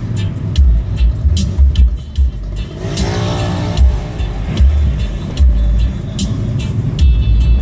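Music with a pulsing bass beat and steady hi-hat ticks, with a short pitched melodic phrase about three seconds in.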